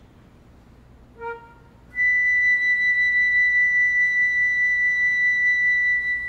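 Flute holding one long, steady high note, starting about two seconds in, with a short lower note just before it.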